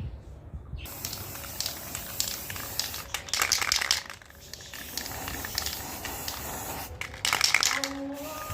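Paint being sprayed: a hiss that starts about a second in and comes in bursts, louder around the middle and again near the end, with short breaks between them.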